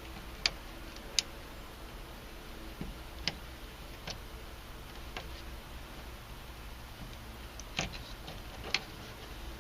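About seven small, sharp clicks and taps at irregular intervals, made by a small screwdriver prying at the plastic clips of a car door speaker's wiring connector.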